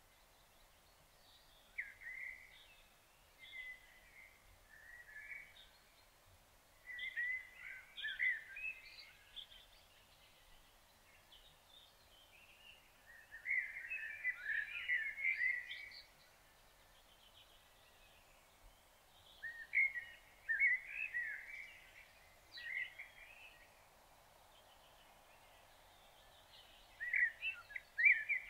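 A songbird singing in short, varied phrases of a second or two, repeated every few seconds, over a faint steady outdoor hiss.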